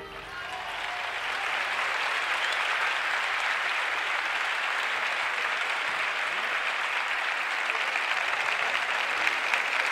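Audience applauding after the final chord of a concert band piece, swelling over the first couple of seconds and then holding steady.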